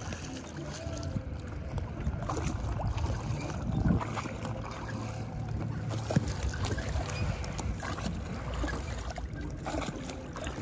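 Motorboat underway, its engine running with a steady low drone over the rush of water, with a louder knock about four seconds in.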